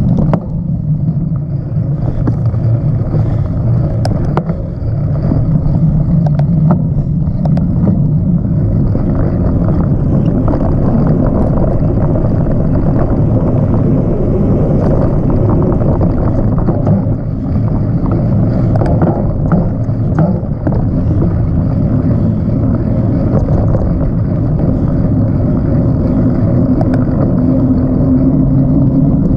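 Steady low rumble of wind on the microphone and knobby tyres rolling over a dirt trail as a mountain bike is ridden, with scattered clicks and rattles from the bike over bumps.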